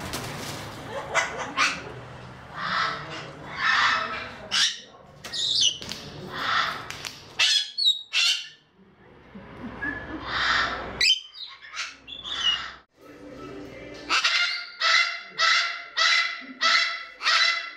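Parrots calling in an aviary: a string of harsh squawks and screeches, then from about three-quarters of the way in a run of evenly repeated honking calls, about two a second.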